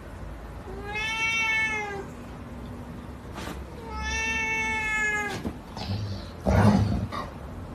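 Ginger cat giving two long drawn-out meows, each about a second and a half, arching slightly up and then down in pitch. Near the end there is a short, loud burst of noise.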